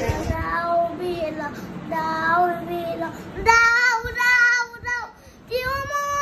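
A young child singing alone in a high voice, without accompaniment, in four drawn-out phrases with short pauses between them. The last two phrases are louder.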